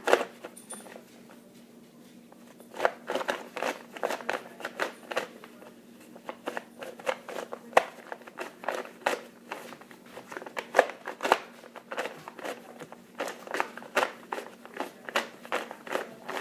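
A 2x2 pillow cube being turned fast while it is solved: a run of quick plastic clicks and clacks of its layers, several a second. A single click at the start is followed by a short pause before the run begins.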